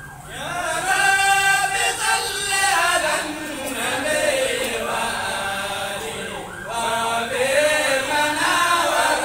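A crowd of walking marchers chanting together in unison, in long sung phrases with a short break about two-thirds of the way through.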